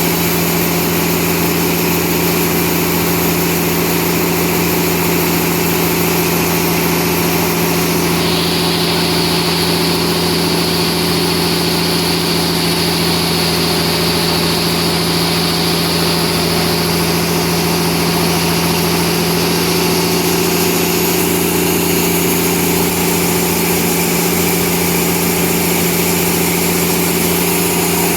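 Sawmill machinery running steadily: a constant hum with a high whine that shifts in pitch about 8 seconds in and again about 21 seconds in.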